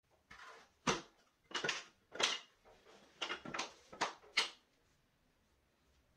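Wooden boards being slid across a tabletop and knocked together edge to edge: a series of about seven hollow wooden clacks with short scrapes, stopping a little past halfway through.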